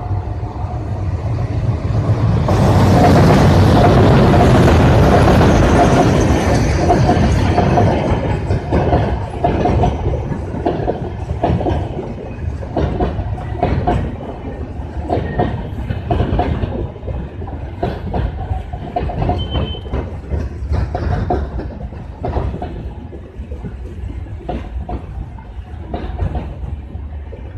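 WDM-3A diesel locomotive passing at speed, its engine and rumble loudest about three seconds in, followed by the long rake of passenger coaches rolling by with a steady clickety-clack of wheels over rail joints.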